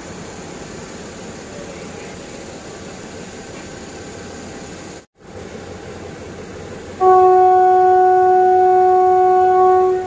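Steady running noise of a moving train. After a brief break, a train's air horn sounds one long, steady note lasting about three seconds.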